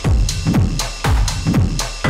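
Electronic dance music with a steady drum-machine beat: deep kick drums that drop in pitch, about two a second, under crisp percussion.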